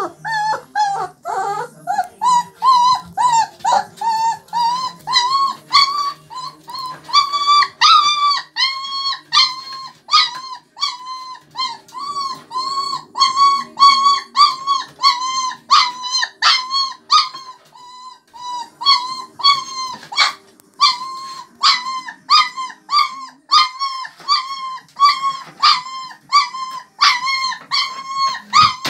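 A 24-day-old German Shepherd puppy crying loudly and over and over, short high arched whines about twice a second. It is hungry and calling for its mother.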